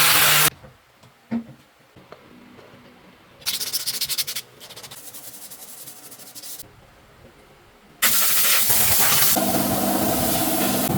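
A string of short, separate workshop noises: a loud hiss cut off half a second in, a few clicks, and a rapid rattle about 4 seconds in. About 8 seconds in, an engine or motor starts with a loud rush and then runs steadily.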